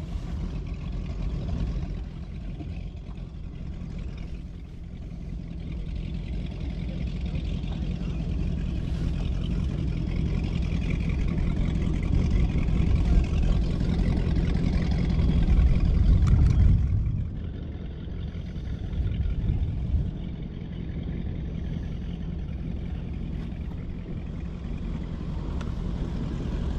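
Bass boat motor running steadily, building up over the first half and dropping off sharply about two-thirds of the way through, then running on more quietly.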